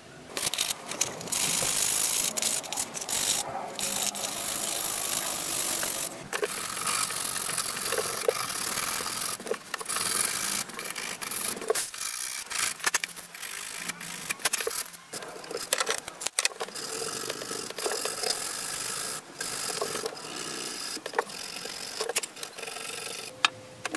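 Hand file scraping on wood, then sandpaper rubbed back and forth over a wooden knife handle, in dry scraping strokes broken by short pauses.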